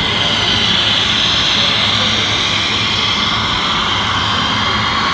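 Steady, high-pitched mechanical whine of radio-controlled construction models running.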